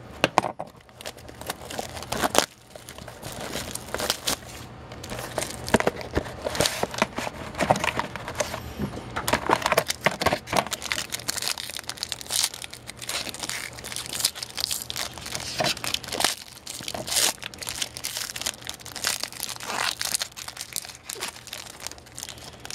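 Plastic wrapping on a sealed trading card box being crinkled and torn open, with the cards and packaging handled, in a run of irregular crackles and rustles.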